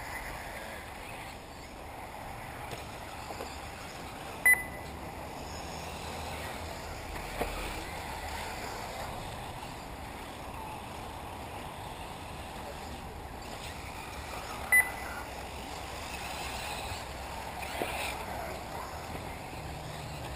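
Electric 1/8-scale RC buggies running on the dirt track, a steady whir of motors and tyres, with two short high beeps about ten seconds apart.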